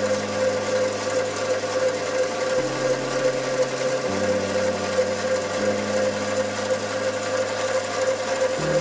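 Small bench metal lathe running, its chuck spinning, with a steady motor whine. Low background music notes change every second or two underneath.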